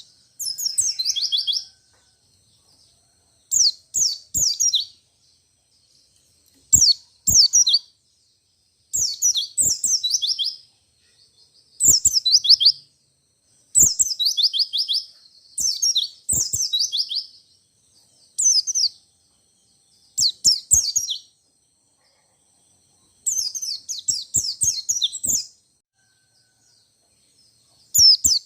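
A white-eye (pleci, Zosterops) singing its fast rolling song: about ten bursts of rapid, high, downward-sweeping notes, each burst lasting one to two seconds, with short pauses between them.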